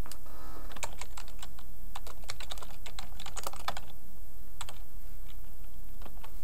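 Typing on a computer keyboard: a quick run of keystrokes for about three seconds, then a few scattered clicks.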